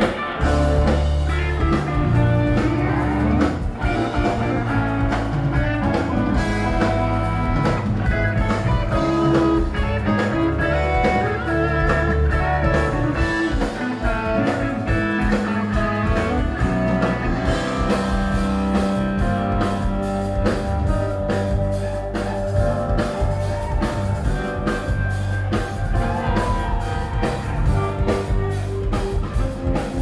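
Live rock band playing an instrumental passage: electric guitars and bass over drums, loud and continuous, recorded on a phone's microphone from the crowd.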